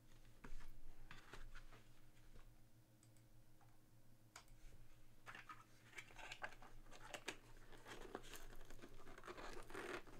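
Small white cardboard boxes being handled: a lid scraping as it slides off, cardboard rustling, and light taps and clicks. A few scattered clicks come first, and the scraping grows busier over the second half.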